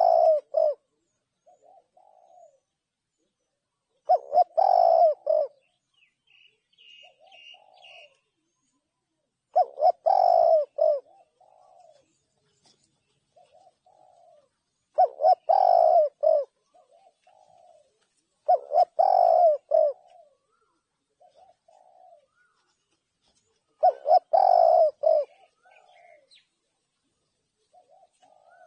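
Spotted dove cooing: loud phrases of cooing notes repeated about every five seconds, with softer single coos in between.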